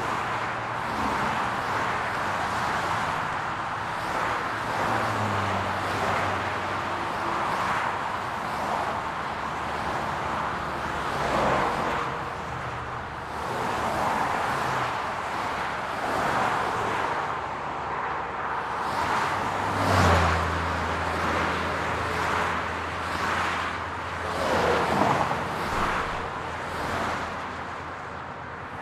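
Highway traffic: a continuous stream of cars passing, tyres hissing on the road, with one especially loud pass about twenty seconds in and another about twenty-five seconds in, and the low hum of a heavier vehicle's engine for several seconds after the first.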